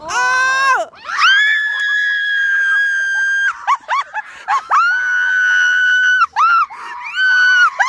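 Girls screaming with excitement: a series of long, high-pitched held screams, the longest lasting about two seconds, broken by short yelps.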